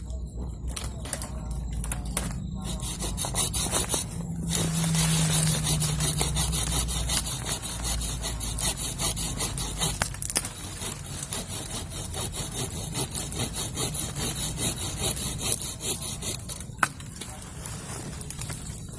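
Hand saw cutting through wood in steady rasping strokes, loudest about five seconds in.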